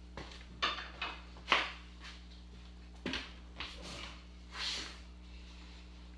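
Hand tools being picked up and handled: a series of short clanks and knocks, the loudest about a second and a half in, over a faint steady hum.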